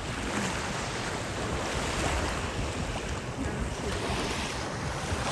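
Sea waves washing onto a beach, with wind buffeting the microphone.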